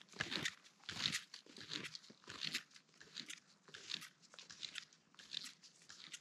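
Snowshoe footsteps crunching in deep snow at a steady walking pace, about three steps every two seconds, growing fainter as the walker moves away.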